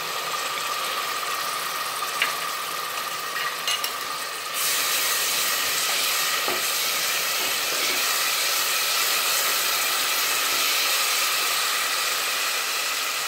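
Ginger-garlic paste and browned onions sizzling in hot oil in a pressure cooker, stirred with a wooden spatula. The sizzle is a steady hiss that grows louder about four and a half seconds in, with a few light spatula taps in the first few seconds.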